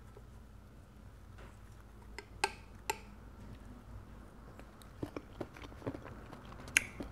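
A metal spoon clicks sharply twice, about two and a half seconds in, as it scoops salt and pepper and balut. After that come faint sounds of chewing a soft mouthful, with a few small clicks.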